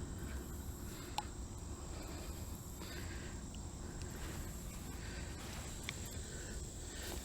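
Insects singing as a steady high drone over a low outdoor rumble, with a few faint clicks about a second in and near six seconds.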